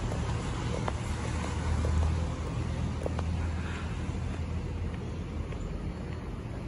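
Low, steady rumble of road traffic, swelling briefly about two seconds in.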